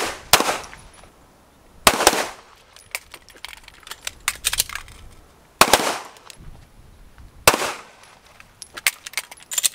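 Pistol shots fired one at a time with pauses of one to four seconds between them, about five loud sharp cracks in all, with fainter clicks and pops in between.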